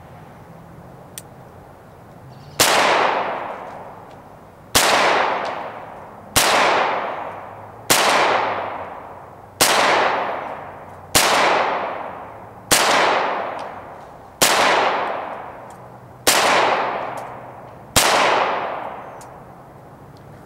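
Ten shots from a Ruger Mark III Target .22 LR semi-automatic pistol, fired one at a time about every one and a half to two seconds, each followed by a fading echo.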